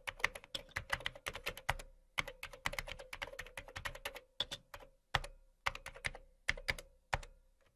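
Computer keyboard keys clicking as a phrase is typed: quick runs of keystrokes with a brief pause about two seconds in, then slower, separate keystrokes in the second half.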